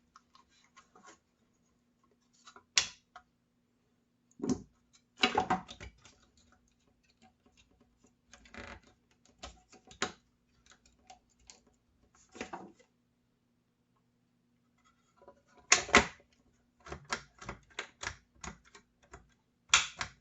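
Irregular clicks and taps of small plastic parts being handled and seated in the Skil 1825 router's handle housing, with the trigger switch being pressed to test it. The loudest clicks come about 5 seconds in and again about 16 seconds in, with a quick run of clicks near the end.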